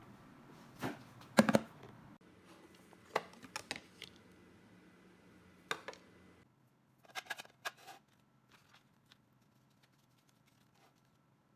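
A series of sharp clicks and knocks from kitchen utensils and cookware being handled during food preparation. The loudest knocks come about a second and a half in, and there is a quick run of clicks around seven seconds.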